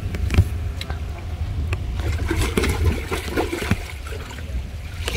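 Water being poured out and splashing, with a steady low rumble of wind on the microphone.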